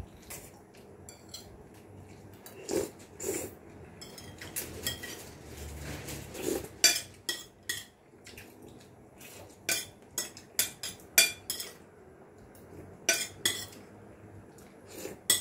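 Metal spoons and forks clinking against plates and bowls during a meal: irregular sharp clinks, more frequent in the second half.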